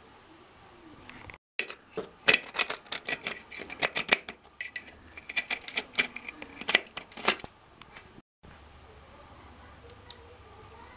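A marker pen scratching in quick, irregular strokes as it is drawn along the edge of a spirit level over rough masonry. The scratching starts about a second and a half in and stops after about six seconds.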